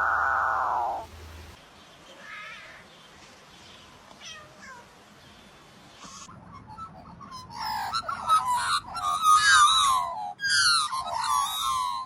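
A bird giving a rapid run of wavering, rising-and-falling calls that grow loud about halfway through, after fainter calls. A steady pitched tone cuts off about a second in.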